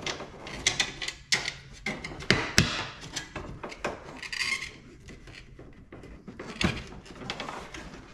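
A carbon fiber fender flare being pressed and tucked by hand against a car's fender and plastic wheel liner: scattered clicks, taps and knocks, with a brief scraping rub about four seconds in. The loudest knocks come about two and a half seconds in and again near seven.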